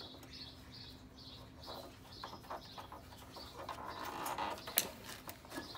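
Small birds chirping repeatedly in the background while hands work a rubber breather (PCV) boot onto a lawnmower engine: faint rubbing and small clicks, with one sharp click just before five seconds in.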